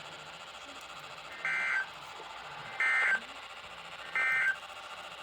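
Three short bursts of Emergency Alert System (SAME) digital data tones, the end-of-message code, each about a third of a second long and a little over a second apart, over faint radio hiss. The code marks the end of a broadcast alert.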